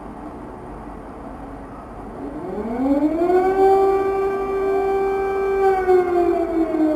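Air raid siren sounding an alert: it winds up about two seconds in, rises to a steady wail, holds, and starts to fall again near the end.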